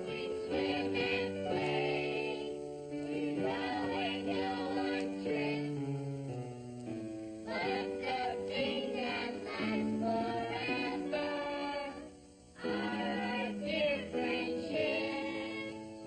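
Theme song sung by a group of young voices with instrumental backing. It dips briefly about twelve seconds in.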